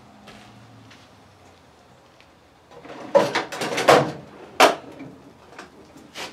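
After a quiet start, a couple of seconds of clattering and knocking as hard objects are handled, with one sharp knock standing out, then a few light clicks near the end.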